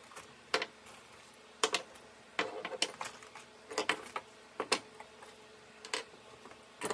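Steel pliers and hand tools clinking as they are picked out of a metal tool-chest drawer and set down on a wooden workbench: a string of sharp clanks and clatters, about a dozen, some in quick pairs.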